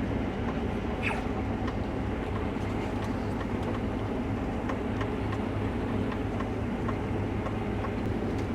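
Combine harvester running steadily during wheat harvest: an even low drone with faint scattered ticks.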